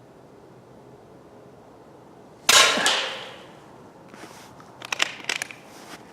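A .22 Vulcan air rifle fires once with a sharp crack that rings away over about a second. A couple of seconds later comes a quick run of quieter sharp clicks.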